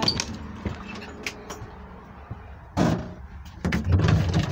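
Handling noise from a phone being moved and covered by a hand: scattered clicks and knocks, with two louder rubbing bursts near the end.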